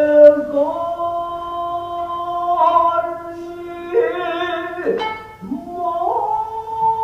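Japanese traditional dance accompaniment: a singer holding long, wavering notes over plucked shamisen strokes, with sharp plucks about four and five seconds in.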